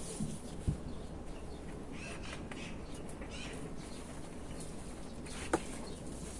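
Quiet handling sounds of a potted flower arrangement being lifted and its black plastic pot pulled off the root ball: leaves rustling and a soft knock, then a sharp click about five and a half seconds in.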